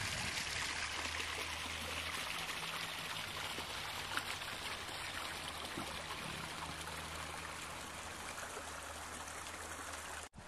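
Shallow stream rushing and splashing over flat rock ledges, loudest at first and easing off a little over the seconds that follow.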